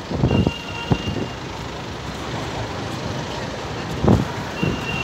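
City street traffic noise: a steady hum of vehicles, with a high, thin, steady beep-like tone heard twice, for about a second each time, near the start and near the end, and a couple of short louder sounds in between.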